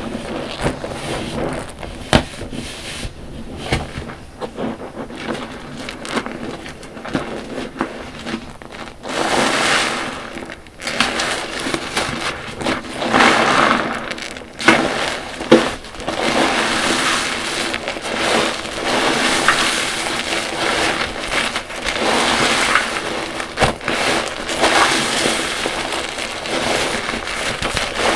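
Soapy car wash sponges squeezed again and again in soapy water, the suds and water pressed out with each squeeze. The squeezing gets louder and busier about a third of the way in.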